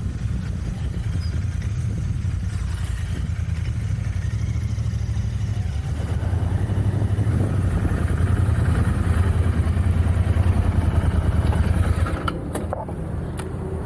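Royal Enfield Continental GT 650's 648 cc parallel-twin engine running through its stock exhaust, a steady low pulsing note that gets louder about halfway through and drops back about two seconds before the end, with a few sharp clicks near the end.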